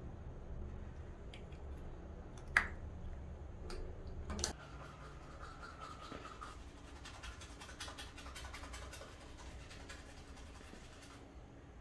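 Toothbrush scrubbing teeth in quick, rapid back-and-forth strokes from the middle of the stretch until shortly before the end. Before that come a sharp click, the loudest sound, and a second click about two seconds later.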